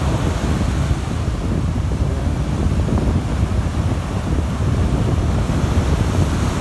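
Wind buffeting the microphone, a heavy low rumble, over the wash of surf breaking on the beach.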